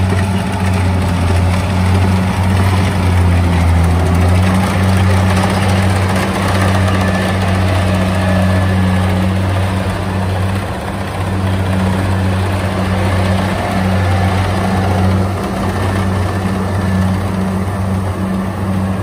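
Kubota DC70 rice combine harvester running steadily under load as it cuts and threshes rice. Its diesel engine gives a loud, even low hum with machine noise from the header and threshing drum above it.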